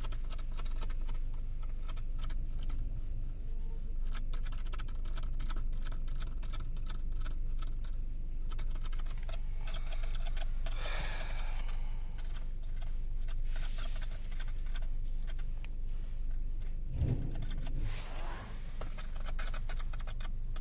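Squeaking and creaking from a Tenet T4's steering as the steering wheel is turned, a string of irregular clicks and creaks over a steady low hum, with longer drawn-out squeaks about ten seconds in and again near the end.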